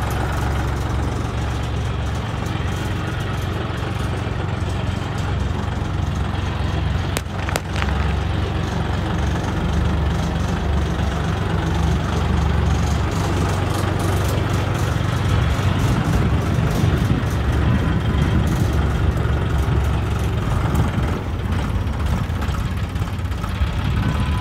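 John Deere 5310 tractor's three-cylinder diesel engine running steadily as the tractor drives about.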